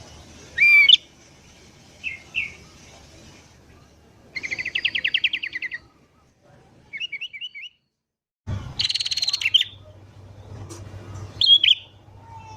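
Sooty-headed bulbul calls: short, bright, bending whistled notes in separate bursts, a rapid chattering trill of repeated notes about a third of the way in, and a loud burst of chatter right after a brief total silence about two-thirds of the way in.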